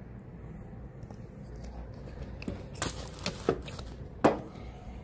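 Handling noise from a phone microphone being moved about: rustling and cloth brushing the microphone, with a few short knocks and bumps about three and four seconds in, the last one the loudest.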